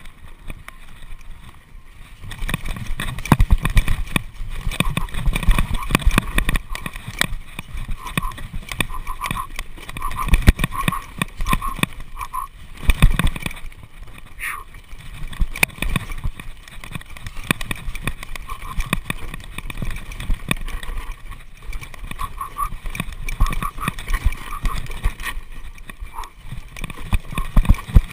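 Mountain bike rattling and knocking over a rough dirt trail on a fast descent, with a low rumble underneath; the jolts start about two seconds in and keep coming in quick, uneven clusters.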